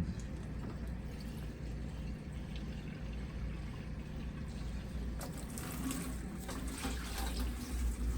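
Water being poured or run into a cooking pot, a steady liquid splashing, with a few light clicks in the second half.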